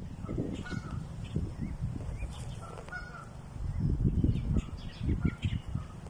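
Canada geese giving a few short honks, about a second in and again around two and three seconds, over a low rumble of wind on the microphone that swells near the end.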